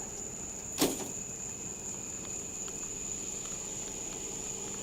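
A steady high-pitched insect drone with a low hum beneath it, broken about a second in by a single sharp knock, the loudest sound here.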